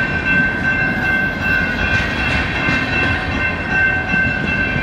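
Cars of an empty coal train rolling past: a rumble of wheels on rail with a steady high-pitched squeal over it.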